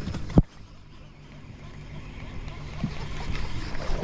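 A sharp knock on the boat, then water splashing that builds toward the end as a hooked speckled trout thrashes at the surface beside the stern. A low steady hum runs under it.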